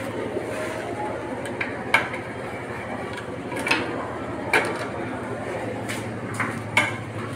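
A steady low hum, with about five short, sharp clicks and knocks of small parts and tools being handled.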